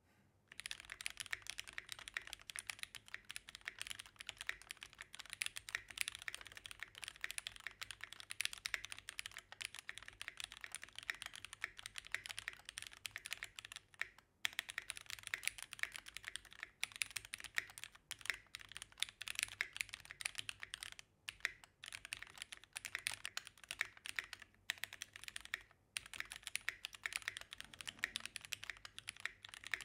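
Sound test of a Keychron Q1 aluminium gasket-mounted mechanical keyboard with brown tactile switches and stock double-shot ABS keycaps, its case padded with added foam to cut the ping. Fast, continuous typing, with short pauses about 14, 21 and 25 seconds in.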